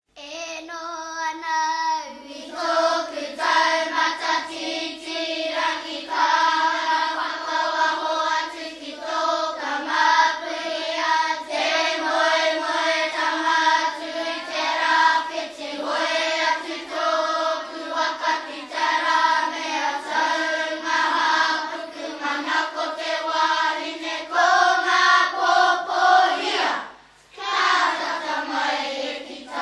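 A group of voices singing a Māori waiata together, breaking off briefly near the end before carrying on.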